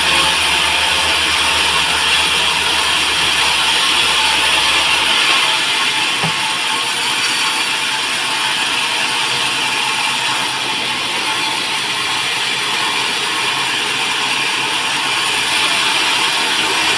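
Band sawmill machinery running with a steady mechanical clatter. A low hum drops away about five seconds in and returns near the end.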